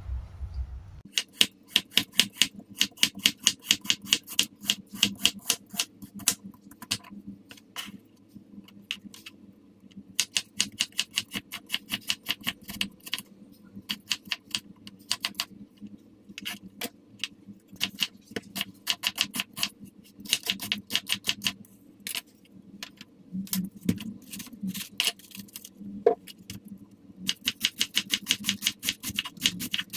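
Chef's knife chopping on a wooden cutting board in quick runs of taps with short pauses, slicing carrot into thin strips and, near the end, shredding cabbage.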